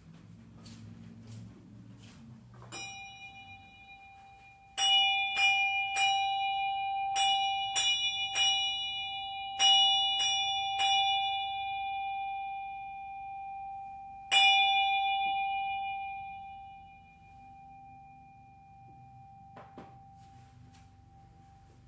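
A small bell struck in three quick groups of four strokes, after one faint first stroke, then struck once more. Its single clear tone rings on and fades away after the last stroke.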